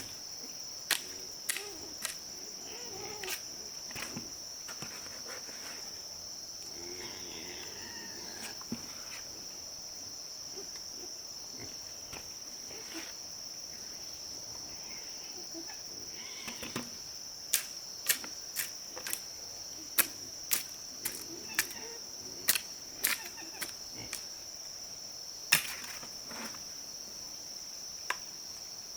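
Steady high-pitched drone of insects such as crickets, with scattered sharp knocks, most of them in the last third.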